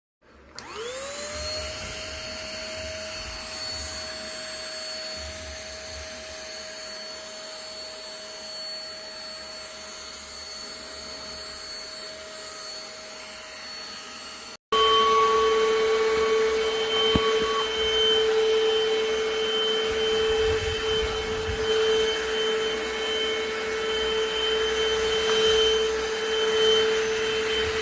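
Keromee 2-in-1 handheld cordless vacuum cleaner's motor spinning up with a rising whine about half a second in, then running steadily. About halfway through, the sound jumps abruptly louder with a lower, different-pitched whine.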